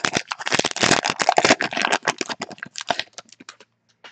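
Foil wrapper of a 2018 Panini Unparalleled football card pack being torn open and crinkled in the hands: a dense run of crackles that stops about three and a half seconds in.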